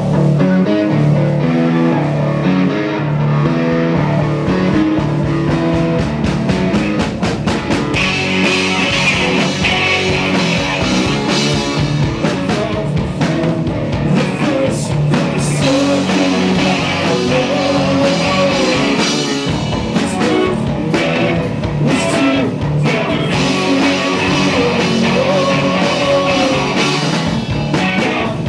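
Rock band playing live, with electric guitars and a drum kit, loud and continuous.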